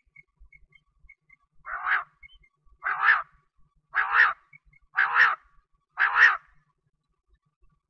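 Quail calling: five harsh, raspy calls about a second apart, each in two quick pulses. Before them come faint soft notes at about three a second.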